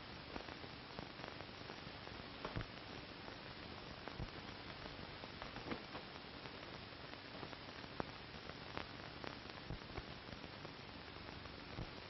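Steady hiss with scattered faint crackles and a low hum, the background noise of an old 1940 film soundtrack; no other sound stands out.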